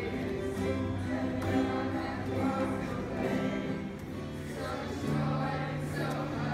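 A young group choir singing a song together, accompanied by strummed ukuleles and an acoustic guitar.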